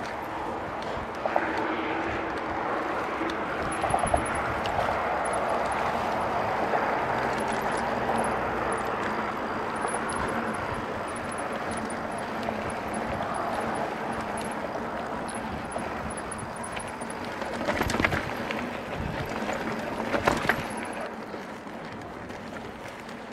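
Mountain bike rolling along a dirt singletrack: steady tyre and wind noise on the action camera, with sharp knocks from bumps about a second in, around four seconds in, and twice near the end.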